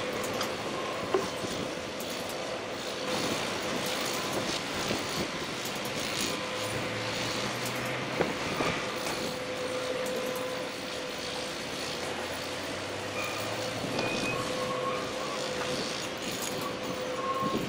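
Heavy construction-site machinery running steadily while a mobile crane lifts a load, with a steady whine over the engine noise. Two sharp knocks stand out, about a second in and about eight seconds in.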